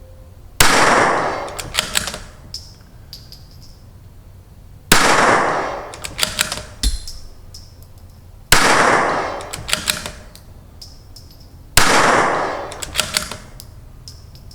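CZ 457 .22LR bolt-action rifle fired four times, about three to four seconds apart. Each shot rings off for about a second and is followed by a quick run of metallic clicks as the bolt is worked to chamber the next round.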